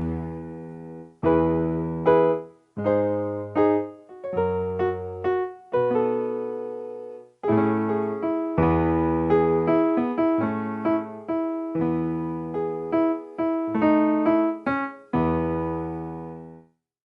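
Background keyboard music: electric-piano chords struck and left to ring out, in phrases broken by brief silent gaps.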